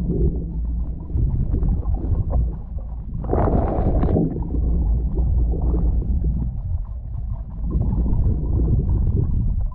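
Underwater water-flow noise on a GoPro being towed through the sea: a continuous muffled low rumble and gurgle, with a brief louder hissing rush about three and a half seconds in.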